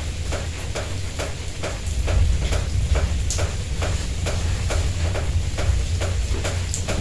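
Steady rain falling, with a rapid, regular tapping of drips about four times a second and a low rumble underneath.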